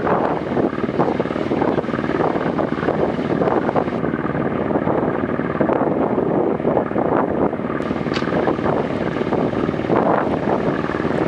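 Boat engine running steadily at cruising speed, a continuous fast chugging throb.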